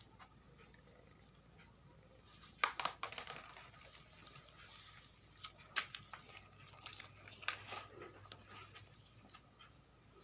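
A cat playing on a hard surface: a quick flurry of scrabbling and clicking from paws and claws, then scattered single clicks and light patters.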